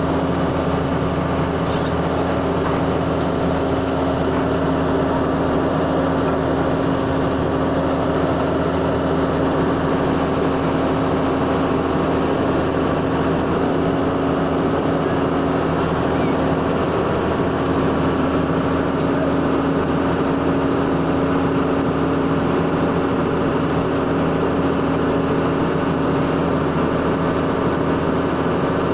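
Engine-driven earth-digging power drill running steadily at constant speed, with a steady hum.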